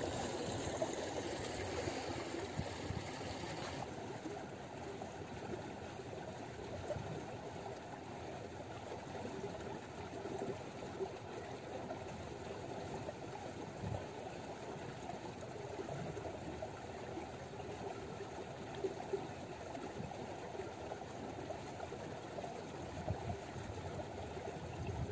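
Steady low rushing outdoor noise, with a few faint knocks scattered through it.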